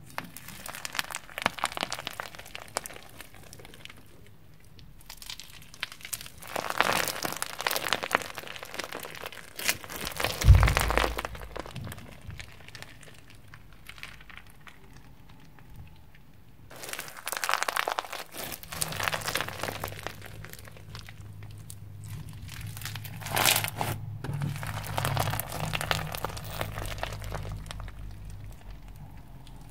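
Crunchy floam slime, slime packed with small foam beads, being squeezed and poked, crackling and popping in bursts with short pauses between handfuls. There is a low thump about ten seconds in.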